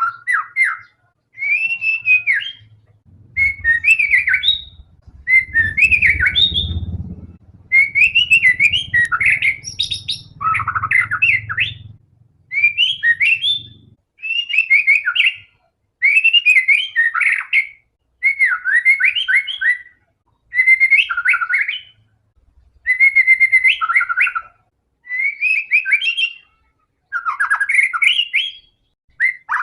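White-rumped shama (murai batu) singing a long run of short, varied whistled phrases, each about one to two seconds long, with brief pauses between them. A faint low rumble lies under the first half.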